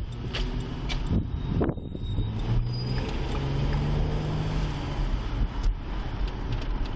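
A Ford police cruiser's engine and road noise heard from inside the cabin while it drives, a steady low hum. A few sharp clicks and knocks come in the first two seconds.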